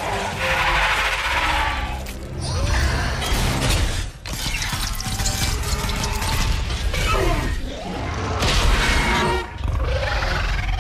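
Film fight sound effects of a giant robot and a monster: crashing and shattering debris with clanking mechanical sounds, several separate impacts, over film score music.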